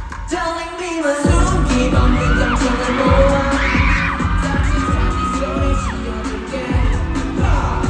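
Live pop song: a sung melody over a band backing track with a beat. The bass and drums drop out for about the first second and briefly again near the end.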